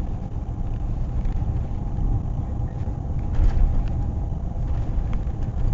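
Steady low rumble of a car driving along a country road, heard from inside the cabin: engine and tyre noise.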